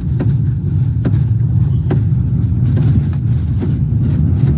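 Tornado winds buffeting an armored storm-intercept vehicle in a loud, steady low rumble, with sharp knocks of debris striking the body about once a second.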